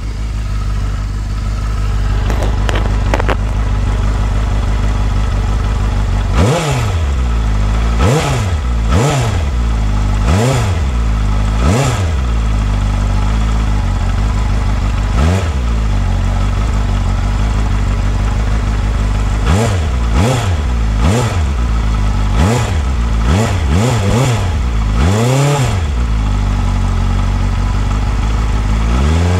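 Benda LFC700's four-cylinder engine idling, then blipped about a dozen times in short revs from about six seconds in, each rising in pitch and dropping straight back to idle, with steady idle between them.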